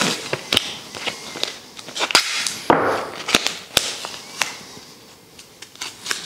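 Blue painter's tape being pulled off its roll and wrapped around thin wooden shims: a longer ripping crackle about a third of the way in and several sharp snaps as the tape comes free and is stuck down.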